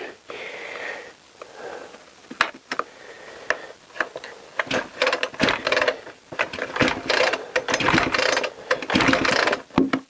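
Two-stroke petrol chainsaw being pull-started: a few clicks, then several quick pulls of the recoil starter in the second half, the engine turning over without catching. It will not fire; its spark plug is wet with fuel, which the owner suspects means it is flooded.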